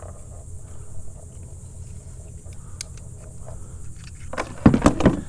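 A small snook thrashing against a plastic kayak while being unhooked: a quick cluster of loud knocks and thumps near the end, over a faint steady low rumble.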